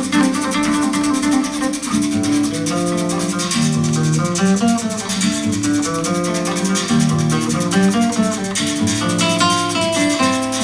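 Guitar music with a quick, even shaker-like rhythm, played back through an Altec loudspeaker system: a 1505 horn on a 288 two-inch compression driver over a 416 woofer.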